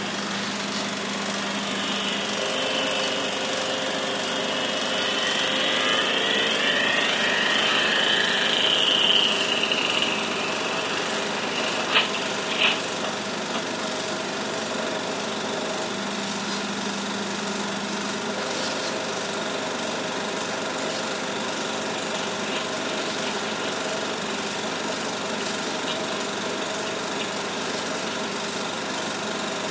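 A 16mm film's soundtrack played through the Bell & Howell 8D 655 projector's amplifier, with the projector's mechanism running steadily underneath. On the soundtrack a small model-airplane engine whines, its pitch rising and falling and growing louder over the first nine seconds or so. Two sharp clicks come about twelve seconds in.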